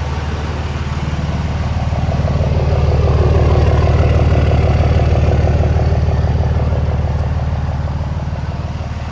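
2006 Cummins 5.9 L inline-six turbodiesel running steadily, getting a little louder over the first few seconds and then easing off slowly.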